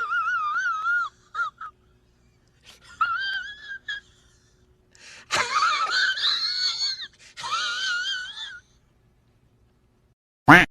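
Meme sound effect: a high-pitched, warbling wail in four bouts, the pitch wobbling up and down within each, followed by a short sharp sweep near the end.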